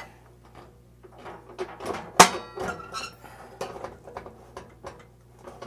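Table-saw sled carriage being adjusted by hand: scattered knocks and clicks, with one sharp knock about two seconds in.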